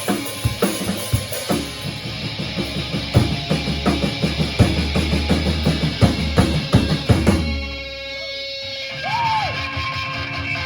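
Rock band rehearsing: a drum kit plays a busy beat of kick and snare hits, then the drums stop about seven and a half seconds in and sustained guitar notes ring on.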